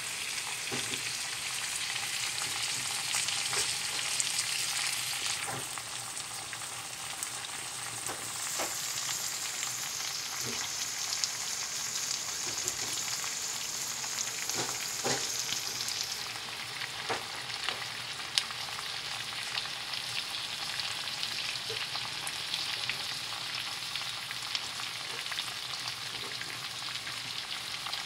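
Chicken, potato chunks and green onion sizzling in a stainless steel frying pan: a steady frying hiss with scattered small pops, easing slightly about six seconds in.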